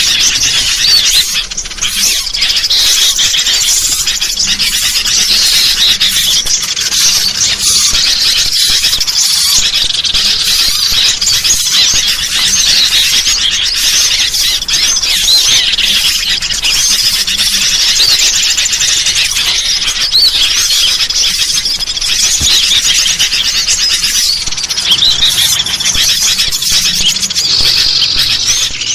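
Dense, unbroken chatter of many overlapping high-pitched bird calls: noisy sooty-headed bulbuls (kutilang) mixed with small-bird calls, a bird-lure recording used to draw in small birds.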